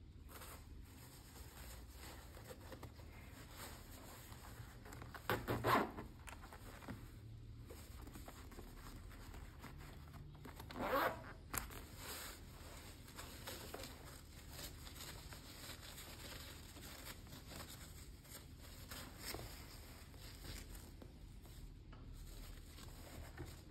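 Zipper on the top cap of a PVC punching bag being drawn, in two short rasping runs about five and eleven seconds in, with a few fainter zip sounds and light handling rustle in between.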